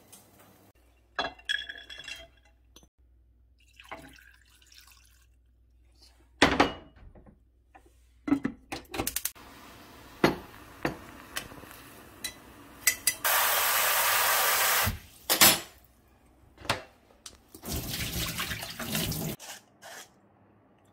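Kitchen clatter of a metal pot, its lid and tongs, with sharp knocks scattered throughout. In the second half, water runs twice for about two seconds each, the first time as a steady stream.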